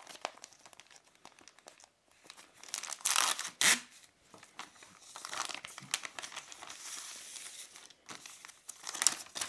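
Plastic poly mailer bag being torn open along its pull strip: a couple of sharp rips about three seconds in, then the plastic crinkling steadily as it is handled.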